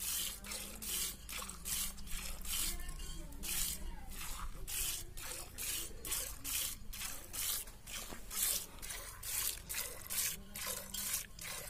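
Milk squirting by hand from a cow's teats into a steel pail: short hissing jets in a steady rhythm, about two a second, one with each pull.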